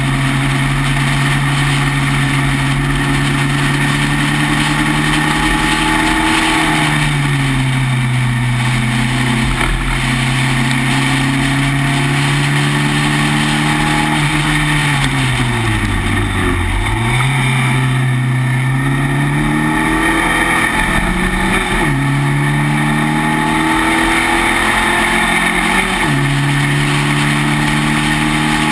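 Spec Racer Ford's engine heard from on board at racing speed, running loud with its pitch stepping suddenly a few times and dipping then climbing back midway, over steady wind rush.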